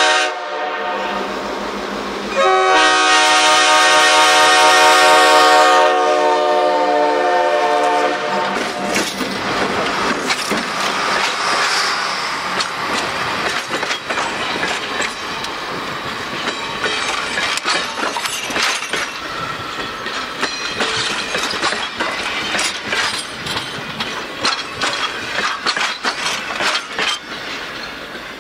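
1952 EMD FP7 diesel locomotive sounding its air horn: the tail of one blast right at the start, then one long blast of about five seconds as it draws near. After that the train rolls past, with the steady clickety-clack of the passenger cars' wheels over the rail joints.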